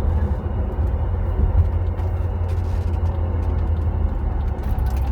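Steady low rumble of road and drivetrain noise inside the cabin of a moving BMW F07 5 Series GT.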